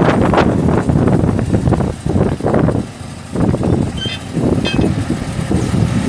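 Kubota B26's three-cylinder diesel engine running while the backhoe hydraulics lower the stabilizer legs, with heavy wind buffeting on the microphone. Two brief high squeaks come about four seconds in.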